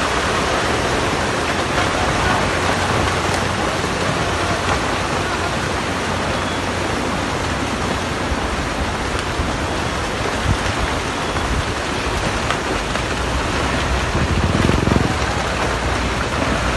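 Landslide: soil and rocks pouring continuously down a steep hillside, a steady rushing noise, with a brief low swell near the end.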